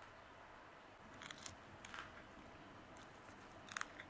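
A few short, faint crackles and rustles as a filled tortilla wrap is handled and pulled apart by hand, over near-silent room tone.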